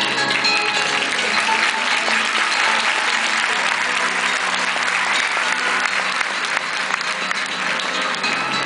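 Large audience applauding steadily, with fainter flamenco guitar music underneath that grows clearer again near the end.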